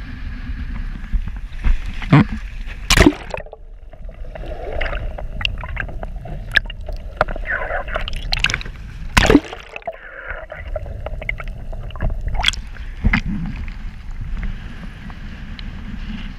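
Waves splashing and sloshing against a camera held low at the side of a boat, gurgling when the camera dips under the surface. There are several sharp slaps of water, the loudest about 3 and 9 seconds in, over a steady low rumble.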